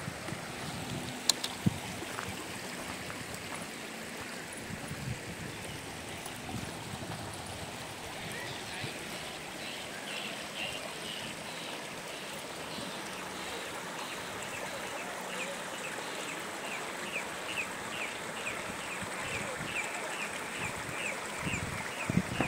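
Shallow mountain stream running over rocks and stones, a steady rushing and trickling. From about eight seconds in, a high chirp repeats two or three times a second.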